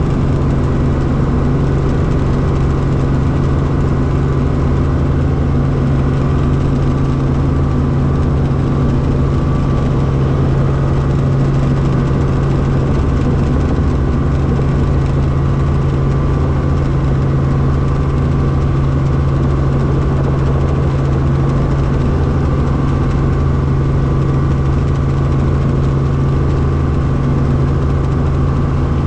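Helicopter engine and rotor running steadily, heard from inside the cabin as a loud, even low hum.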